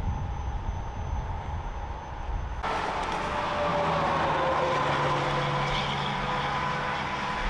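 Heavy vehicle engine running. About two and a half seconds in, the sound jumps abruptly louder, bringing a steady low drone and a whine that slowly falls in pitch.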